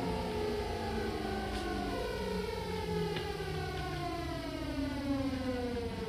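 Seibu 6000 series train's Hitachi GTO-thyristor VVVF inverter and traction motors whining in a stack of tones that fall steadily in pitch as the train slows, over a low running rumble with a few faint clicks.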